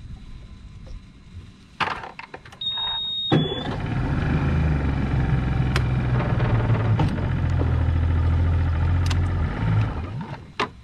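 Outboard motor of a small skiff running at low speed. It starts abruptly about three seconds in, after a few knocks, and cuts out near the end.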